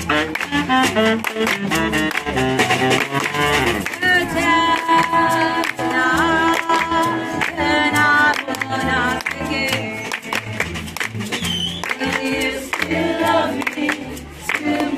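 Small acoustic street band playing: a plucked upright double bass and a snare drum played with sticks keep a steady beat, while a group of women sing along together and clap their hands in time.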